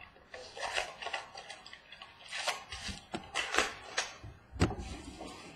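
A foil-wrapped trading card pack being opened and the cards handled: a string of irregular crinkles and clicks from the foil wrapper and the stiff cards.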